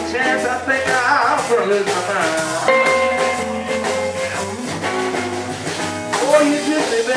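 Live blues band playing with electric guitar, bass guitar and drums, a lead line of held and bending notes over the band.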